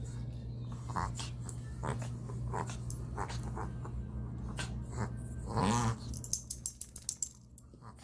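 A dog reverse sneezing: a series of short, sharp inhalations through the nose, roughly one a second, over a steady low hum. Near the end comes a quick run of light clicks.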